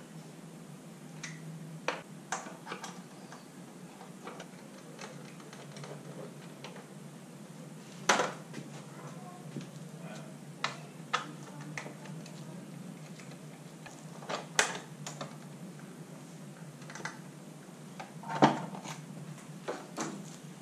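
Scattered clicks and metallic knocks from hand tools and screws as the rear subframe screws of a Talaria TL 4000 electric motorbike are undone. A few knocks are louder: one about eight seconds in and two more near the end. A low steady hum runs underneath.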